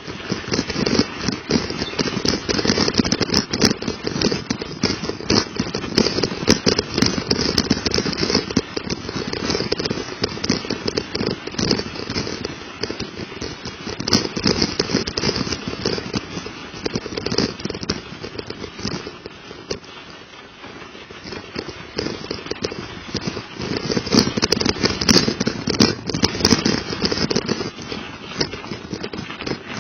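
Michelin-tyred mountain bike tyres rolling over icy, melting snow: a dense, continuous crunching crackle full of small knocks and clicks. It eases off for a few seconds about two-thirds of the way through, then picks up again.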